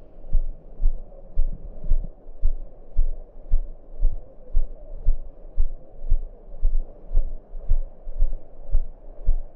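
Footsteps of someone walking at a steady pace, heard as low thumps about two a second, as if through a body-worn camera.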